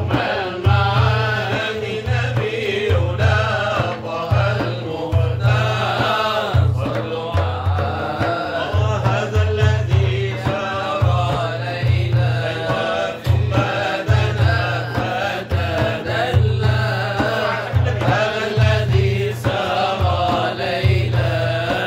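Sufi inshad: men's voices chanting a devotional ode to the Prophet in a melismatic Middle Eastern style, over a low pulsing rhythm that comes and goes about once a second.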